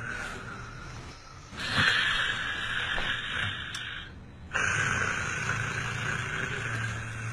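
A person snoring: long, noisy breaths one after another, with a brief break between two of them.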